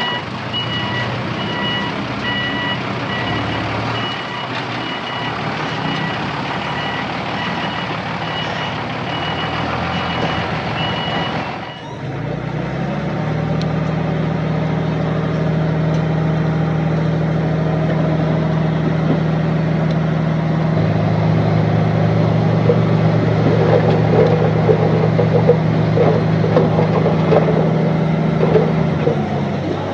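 Construction vehicle reversing with its back-up alarm beeping steadily over the engine. About twelve seconds in the beeping stops, and the engine runs on steadily at a fairly constant pitch, growing louder towards the end.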